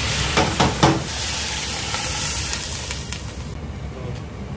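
Meat sizzling in a pot with oil and a little water, with a few stirring knocks in the first second. The hiss turns duller about three and a half seconds in.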